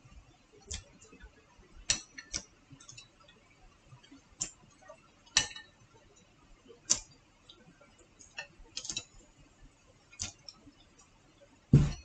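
Light, scattered clicks of wooden chopsticks against a plate while eating, about a dozen at uneven intervals. Near the end, a single deeper knock as the plate is set down on the table.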